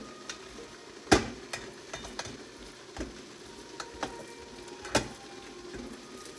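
Corn cobs being turned in a steamer pot: a series of irregular clicks and knocks against the pot, the loudest about a second in and another about five seconds in.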